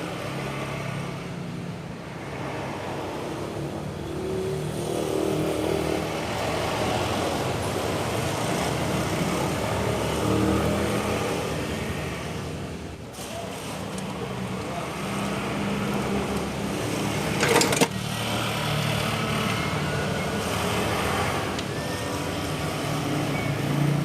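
Motor vehicle engine noise rising and falling over a steady background, with one sharp knock about seventeen seconds in.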